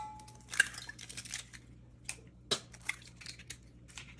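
Eggs being cracked by hand over a glass measuring cup. The cup's ring from a tap on its rim fades at the start. Eggshell crackles and clicks as it is pulled apart, with sharp taps about half a second and two and a half seconds in.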